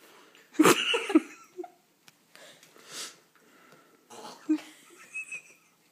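Muffled coughing, wheezing and heavy breathing through a mouth crammed with marshmallows. The loudest outburst comes about half a second in, and softer breathy huffs follow.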